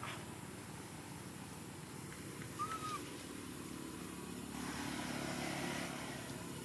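A motorcycle engine running steadily in the background, a low even hum. About two and a half seconds in there is a single short chirp.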